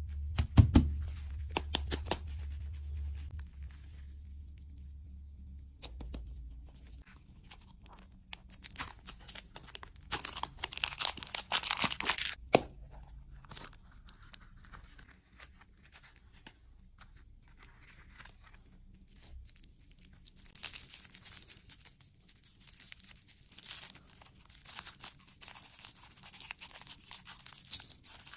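Packaging being torn open and crinkled in bursts, with a longer crinkling stretch near the end. A few sharp clicks come first, and a low hum fades out a few seconds in.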